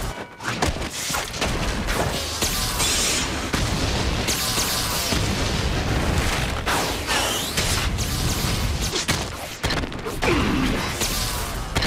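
Anime fight sound effects: a dense run of booms, crashes and whooshes from blows and impacts.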